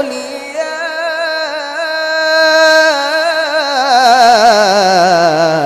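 Qur'an recitation in the melodic mujawwad style by a high-voiced reciter. After a brief breath, one long vowel is held with fast, wavering ornamental turns and slides down in pitch over the last couple of seconds.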